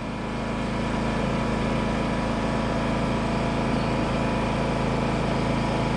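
Honda portable generator running steadily under load, powering a battery charger; its even engine hum swells slightly during the first second and then holds level.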